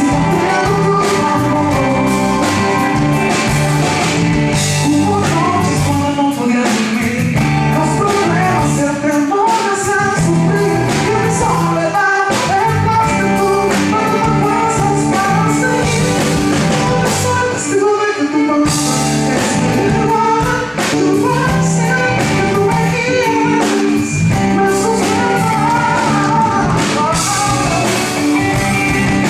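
Live band performance: a male lead singer sings into a microphone over keyboard, drums and electric bass.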